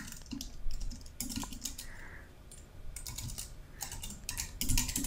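Typing on a computer keyboard: quick runs of key clicks, with a short pause about two seconds in.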